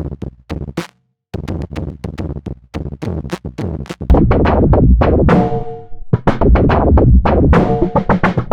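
Electronic drum-machine beat with synth, run through Ableton Roar saturation presets. It starts sparse and quieter, cuts out briefly about a second in, then turns much louder and more distorted from about four seconds in.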